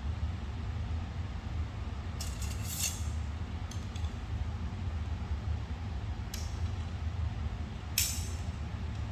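Light clicks and rattles of archery gear being handled, a short cluster about two seconds in and single clicks later, over a steady low hum.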